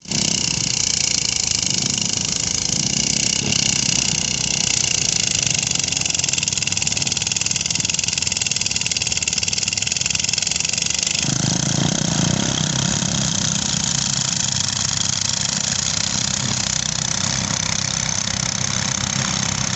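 Engine-driven rice threshing machine running steadily under load as rice sheaves are fed in, a constant engine drone with a strong hiss over it. About halfway through, the low drone grows stronger and the hiss eases.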